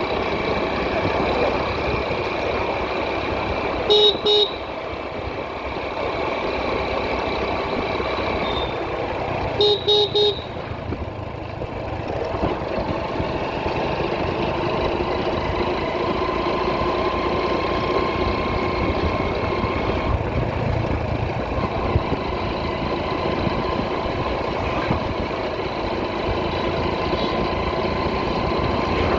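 Motorcycle engine running and road traffic noise during a ride, with two short horn beeps about four seconds in and three quick beeps around ten seconds in.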